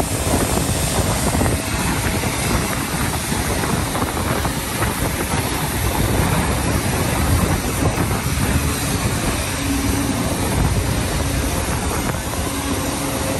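Aircraft engine noise: a loud, steady rumble and rush with no distinct rhythm or pitch change.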